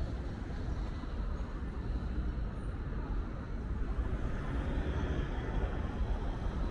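Steady road traffic rumble, with vehicles passing along the bridge.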